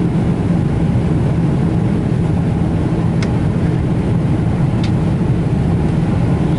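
Steady cabin noise inside a Boeing 777-300ER airliner: a loud low rumble with a constant hum. Two faint clicks sound about three and five seconds in.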